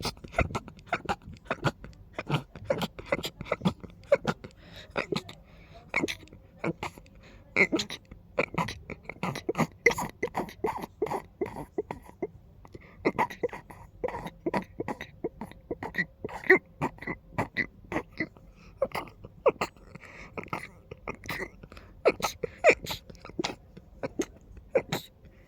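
A person sneezing over and over in quick succession, short sharp sneezes following one another with little pause, brought on by a persistent nose tickle.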